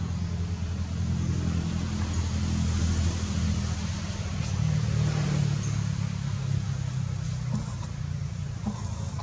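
A motor vehicle engine running, a steady low drone that swells slightly around the middle.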